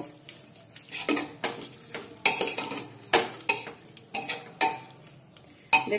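A metal spoon stirring thick jackfruit curry in an aluminium pressure cooker, scraping against the pot in a run of short strokes, with a light metallic ring on some of them.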